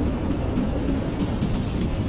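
Blizzard wind blowing steadily, a deep rumble with a thinner hiss above it and no gusts or breaks.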